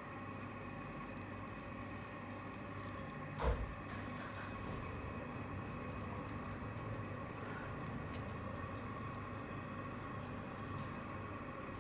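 Steady hiss, plausibly a brazing torch burning on the compressor's refrigerant tubes, with a brief downward-sliding sound and a low thump about three and a half seconds in.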